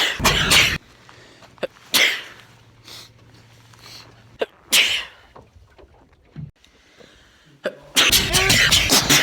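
A man sneezing, two sneezes a few seconds apart, each a short sharp burst. Near the end a loud rhythmic beat starts.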